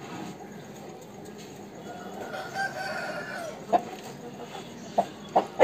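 A rooster crows once, a drawn-out call about two seconds in, then gives three short, sharp clucks toward the end.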